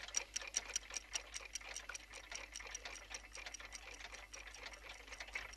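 Many clocks ticking together, a quick, overlapping ticking of several a second that grows fainter after about two seconds.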